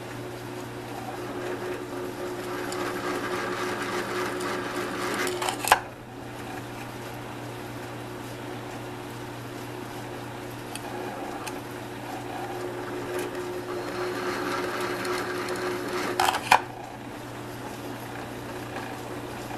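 Drill press motor running steadily while a pilot bit cuts pilot holes through an aluminum enclosure. The cutting noise builds twice, each time ending in a sharp knock, the first about six seconds in and the second about sixteen seconds in.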